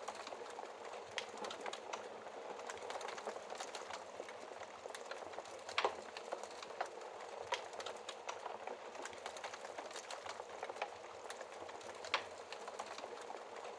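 Wood fire crackling: a steady hiss of burning wood with frequent small snaps, and two sharper, louder pops, one about six seconds in and one near the end.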